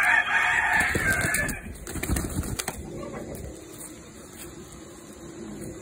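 A held gamecock rooster squawking loudly for about a second and a half, followed by a few low knocks and rustling as it is handled.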